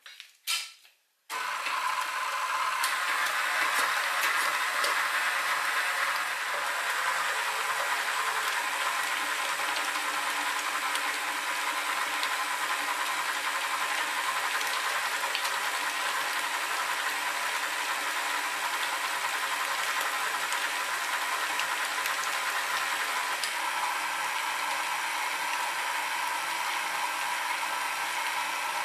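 A couple of clicks as the tilt head of a KitchenAid stand mixer is lowered onto the bowl, then about a second in its motor starts and runs steadily, the flat beater working thick fish paste.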